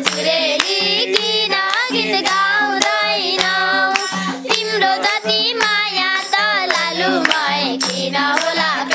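Nepali dohori folk song sung live, with a boy's and women's voices and a group clapping along in rhythm over low held accompanying notes.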